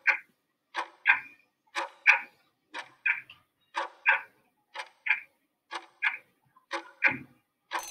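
Countdown timer's clock-tick sound effect: a tick-tock pair every second as the answer time runs down.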